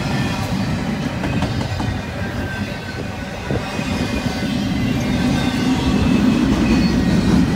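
Double-stack intermodal freight train passing close by, its well cars' wheels running on the rails with a steady low rumble that grows louder in the second half.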